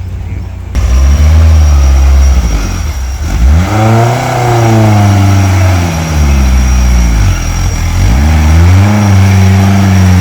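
Off-road 4x4 vehicle's engine revving hard. It cuts in suddenly about a second in, then surges up and falls back in pitch three times.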